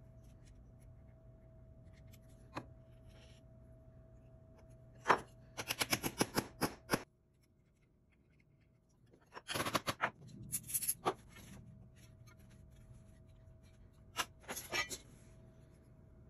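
Bursts of quick small clicks and scraping from hands handling small workpieces on a workbench, over a faint steady hum. There are three bursts, the first and loudest opening with a sharp click.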